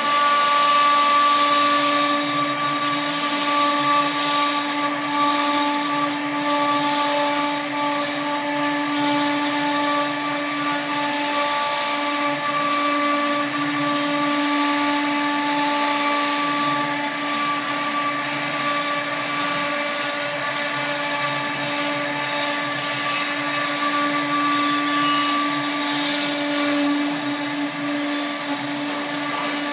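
Large gantry CNC router spindle cutting a board, a steady whine holding several even pitches. Near the end a hiss of air from a hose joins in.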